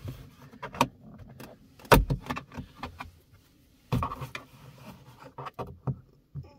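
Plastic clicks and scrapes of a plastic trim tool prying at the plastic sensor cover behind a BMW's rear-view mirror. The loudest sharp click comes about two seconds in, and another cluster of clicks follows around four seconds.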